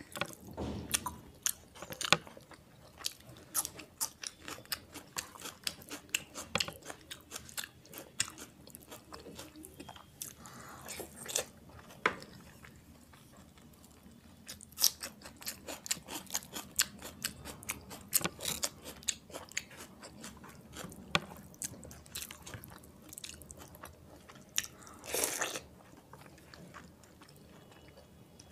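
A person eating rice and mutton keema by hand, chewing close to the microphone, with many short mouth clicks and smacks throughout.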